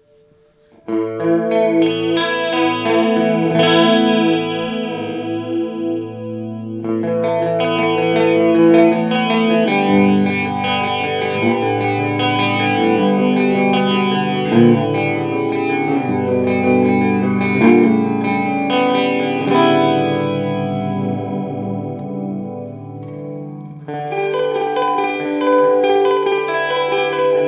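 Electric guitar played through an Electro-Harmonix Polychorus chorus/flanger pedal: ringing chords begin about a second in, thin out briefly near the end, then start again.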